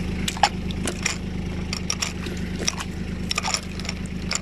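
A hand splashing and scooping water in a plastic cattle drinking bowl, a run of irregular splashes and drips, over a steady low engine hum.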